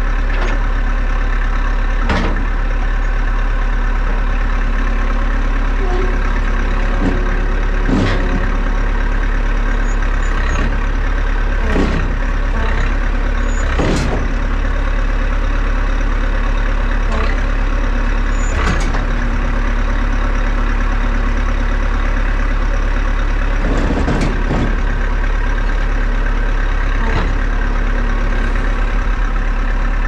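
Bobcat 953 skid steer's diesel engine running steadily under load as it tries to lift the end of a full shipping container on its forks, a load it cannot lift. Several sharp knocks and clanks sound at intervals through it.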